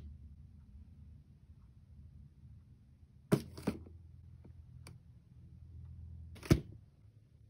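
Steel tape measure handled against a cardboard box: a few sharp clicks and taps of the blade and case, a pair a little over three seconds in and a louder single one near the end, over a faint low hum.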